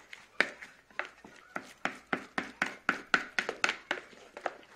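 Spoon knocking against a mixing bowl while stirring soft pizza dough: a quick, irregular run of short knocks, several a second.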